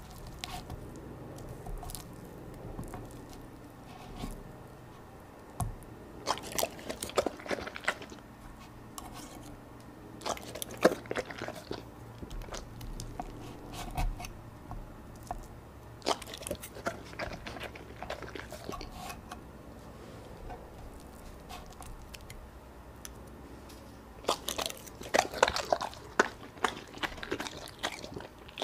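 A Labrador dog chewing and biting pieces of fish fed to it from a fork, in four bursts of wet, crunchy chewing, the loudest near the end.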